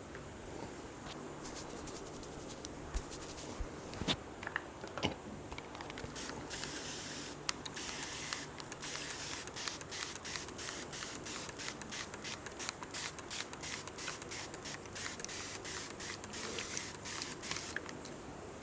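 Hands working over a head and hair during a head massage: steady rubbing and scratching, with a few sharper clicks around four and five seconds in, then a quick, irregular run of light ticks or taps from about six seconds on.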